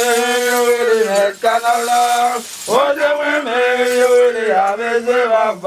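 A man chanting a Haitian Vodou ceremonial song in long, held notes that slide slowly in pitch, with short breaks for breath.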